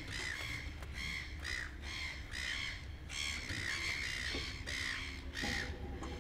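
Birds calling over and over, short squawks each rising and falling in pitch, about two or three a second without a break.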